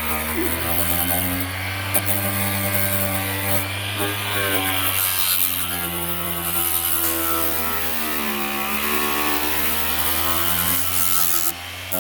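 Electric power sander running against a car's quarter panel, stripping the paint off; its pitch sags and recovers as it is pressed harder into the metal, with a marked dip near the end.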